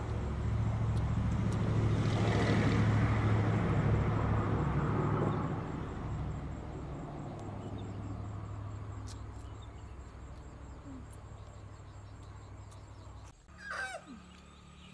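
Engine of a passing motor vehicle: a low hum that is loudest a few seconds in, then slowly fades.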